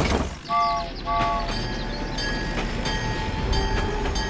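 Train horn sounding two short blasts, then a train running with a steady rumble and regularly repeating clacks.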